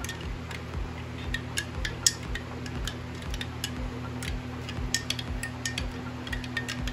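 Metal spoon clinking irregularly against the inside of a glass jar while stirring a mixture of potassium nitrate and sulfuric acid.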